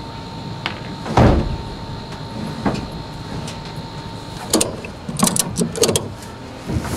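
Knocks and thumps as a wooden subwoofer box is shifted against a pickup truck bed, the loudest a single knock a little over a second in. Near the end comes a quick run of sharp clicks as a ratchet strap around the box is worked.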